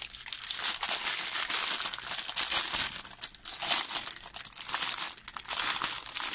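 Clear plastic packaging crinkling loudly as hands unwrap and handle it, a dense run of crackles with a few brief pauses.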